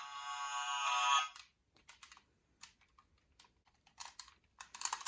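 A toy's electronic sound effect, a bright tinny tune that cuts off about a second and a half in, followed by scattered light clicks of the toy being handled.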